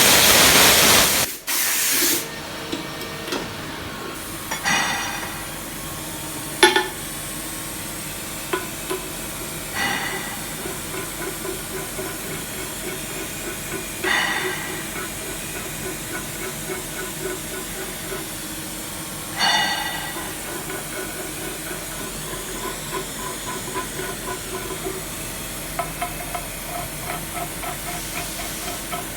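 CNC milling machine thread-milling an internal M24 thread: a loud hiss in the first second, then the spindle and cutter running steadily. Short squeals come every few seconds, and a fast pulsing cutting sound grows stronger near the end.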